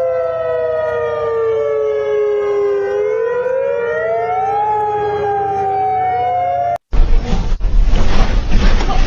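Outdoor warning sirens wailing, as sounded for a tsunami warning: two tones glide slowly down and up, crossing each other. After a sudden break about seven seconds in, a loud rough rumbling noise takes over.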